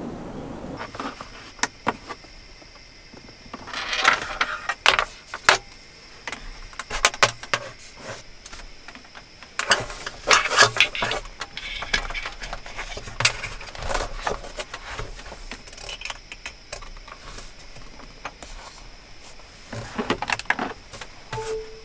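Hands setting up a tablet in its keyboard case and handling charging cables: a run of clicks, taps and rustles, busiest around four to six seconds in, around ten to eleven seconds in, and again near the end, over a faint steady high tone.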